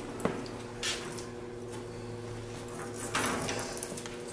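Handmade fiberglass car door being swung open on its hinges: a sharp click about a quarter second in, a softer knock near one second, and a brief scraping rustle around three seconds, over a steady machine hum.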